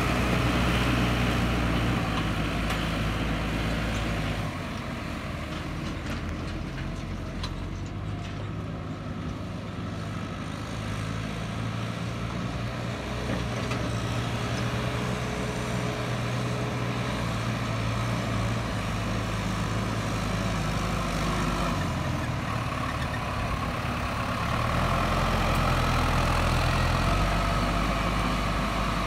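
Case IH tractor's diesel engine running under load while it drags a rear leveling blade through dry soil. The engine is louder in the first few seconds and again near the end, a little quieter in between as the tractor works farther off.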